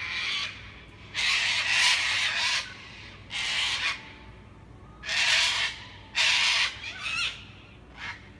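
White cockatoos screeching: about six harsh, raspy screeches, the longest about a second and a half, the rest shorter and spaced a second or so apart.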